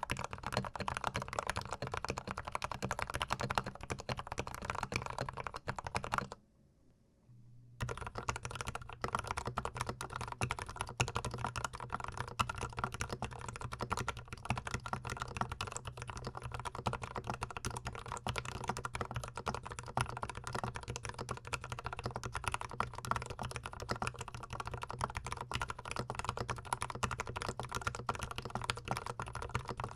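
Rapid, continuous typing on a GMMK Pro mechanical keyboard fitted with Gateron Ink Black linear switches. A brief silent break comes about six seconds in, then the typing resumes with a slightly different tone.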